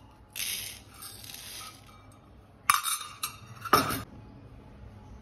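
Dry coriander seeds spooned from a steel container onto a ceramic plate: a short rattling pour of seeds, then two sharp clinks of metal against the plate.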